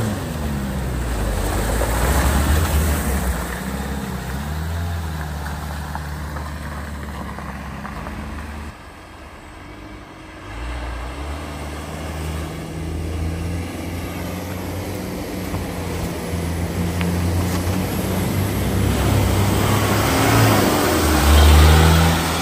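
A Citroën Berlingo van's engine running as it pushes through a flooded ford, with water rushing around it; this cuts off suddenly. Another vehicle's engine then comes in through deep floodwater, growing louder, until a lifted 4x4 pickup on large off-road tyres passes close near the end, its engine and the splashing spray loudest there.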